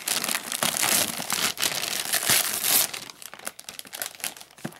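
Shiny foil Christmas wrapping paper crinkling and tearing as it is pulled off a gift box. The crackling is dense for about the first three seconds, then thins to scattered rustles.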